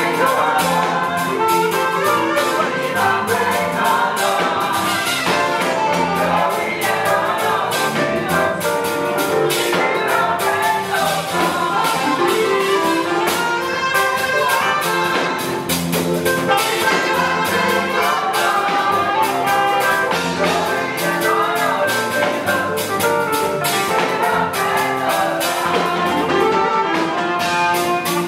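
Live gospel praise music: a saxophone plays the lead melody over a backing band with a steady beat, with backup singers joining in.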